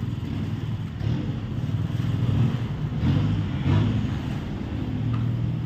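Small motorcycle engine pulling a sidecar cart at low speed, its note picking up briefly about three seconds in.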